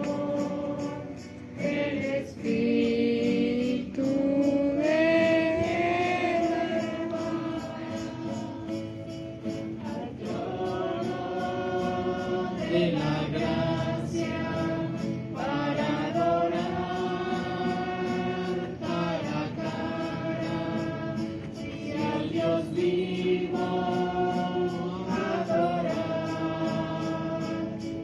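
Voices singing a slow hymn, in held notes and phrases with short breaks between them.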